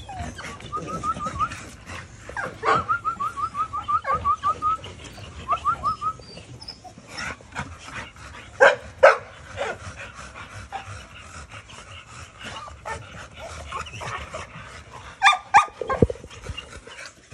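American Bully dogs playing: runs of quick, high whines or yips in the first few seconds, then two sharp barks about nine seconds in and a short cluster of barks near the end.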